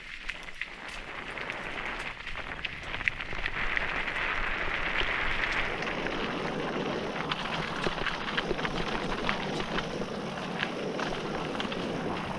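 Mountain bike rolling down a rough dirt and gravel singletrack: a steady rush of tyre noise over loose stones, growing louder a couple of seconds in, with frequent small clicks and rattles from stones and the bike.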